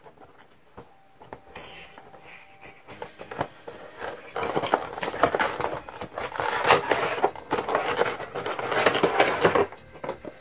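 Cardboard and plastic Funko Pop box packaging being opened and handled: dense rustling, scraping and clicking that starts about four seconds in and goes on for several seconds.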